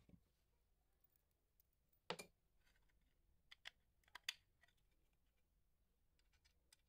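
Small plastic and metal parts handled on a tabletop: a knock about two seconds in, then a few sharp clicks over the next two seconds.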